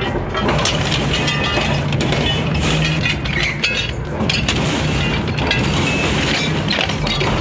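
Industrial shredder crushing and breaking material: dense, continuous cracking and crashing over a steady low machine hum.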